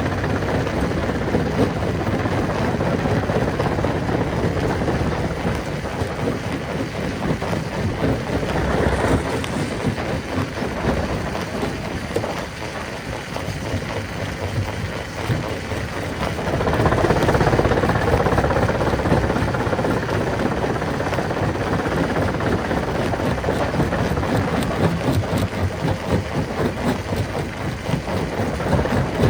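Rock-crushing machine running and breaking stone: a continuous heavy rumble full of rattling and clattering rock, easing a little about halfway through and then growing louder again.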